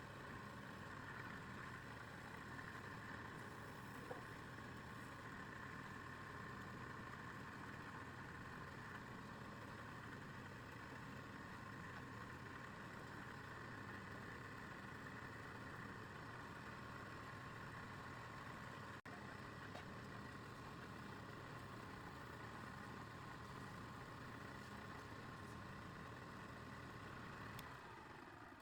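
Electric wood lathe motor running at a steady speed, a faint hum with a high whine, then slowing and fading out near the end as the lathe is switched off.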